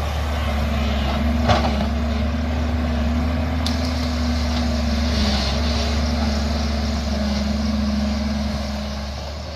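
JCB tracked excavator's diesel engine and hydraulics running steadily as the machine works and swings, with a constant low hum. A single sharp clank comes about a second and a half in.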